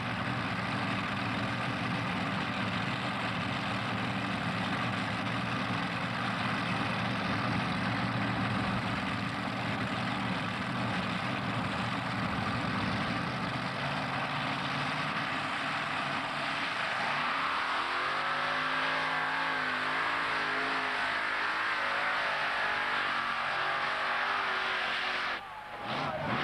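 Pulling tractor's engine running steadily, then from about two-thirds of the way in its pitch rises and wavers as it revs. Near the end the sound breaks off suddenly.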